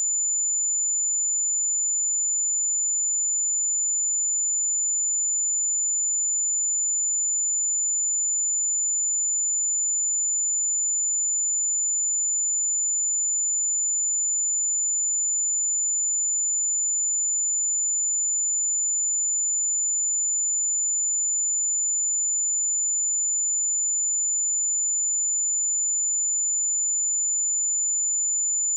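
A steady, high-pitched 7028 Hz sine-wave test tone: one pure tone held at a constant level.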